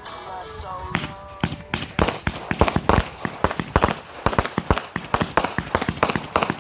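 A string of firecrackers going off: a rapid, irregular run of sharp bangs, several a second, starting about a second in.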